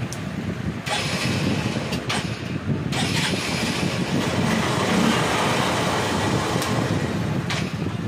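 Honda CB Unicorn motorcycle's single-cylinder four-stroke engine idling steadily.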